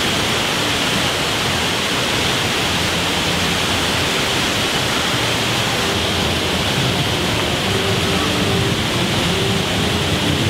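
Loud, steady rushing of falling water, like a waterfall.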